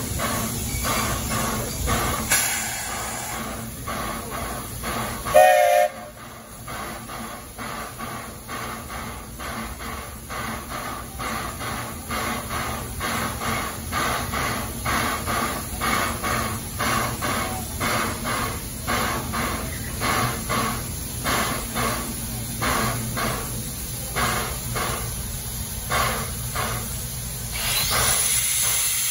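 Walt Disney Railroad steam locomotive standing with steam up, giving a steady rhythmic chuffing of about two beats a second, with one short whistle toot about five seconds in. Near the end a loud hiss of steam vents from the cylinder cocks as the engine gets ready to move off.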